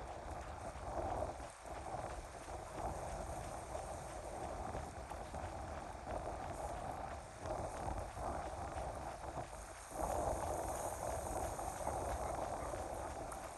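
Wind rumbling on the microphone over the steady wash of choppy lake water, swelling louder about ten seconds in.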